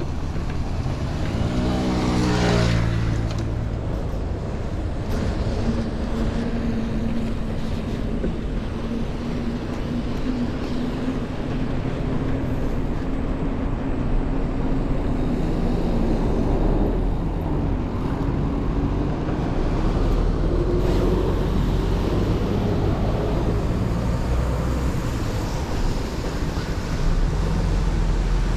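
Road traffic heard from a moving bicycle: a motor vehicle passes about two seconds in, its engine note falling as it goes by, over a steady low rumble.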